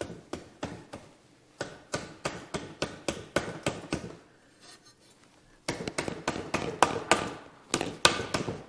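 Repeated light hammer taps on wood timber, about three a second, in two runs with a short pause between them, as a truss piece is knocked into position.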